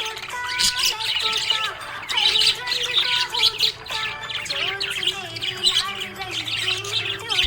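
Budgerigar chirping and warbling in rapid, continuous chatter, the happy chirping of a pet budgie.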